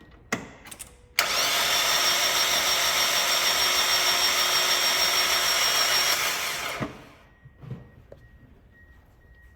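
Mazda Miata NB engine cranking on its starter with all spark plugs out: an even, steady spin with no compression pulses, the sign of zero compression. It starts about a second in after a few clicks and stops after about five and a half seconds.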